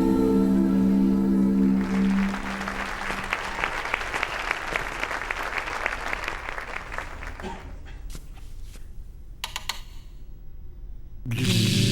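A held musical chord, then a dense patter of many small clicks like applause that thins out to a few scattered clicks, with music starting again near the end.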